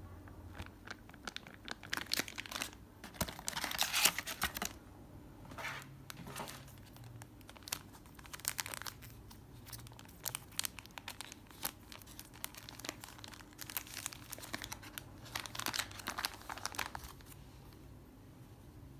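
AirPods Pro packaging being handled and opened by hand: rustling and small clicks in bunches, busiest about four seconds in and again around sixteen seconds, then quieter near the end.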